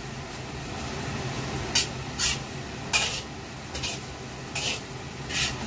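Metal wok spatula scraping and turning fried rice in a wok: six short scrapes, starting a little under two seconds in and coming about every half to one second, over a steady low hum.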